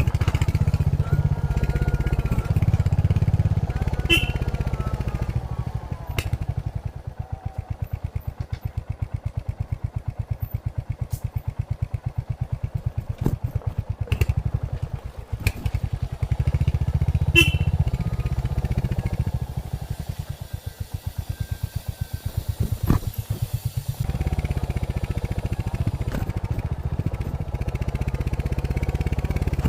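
Royal Enfield Hunter 350's single-cylinder engine through its stock exhaust, riding along. It pulls steadily under throttle at the start and again a little past the middle. In between, off the throttle, it settles into a slow, even beat, with a few sharp knocks.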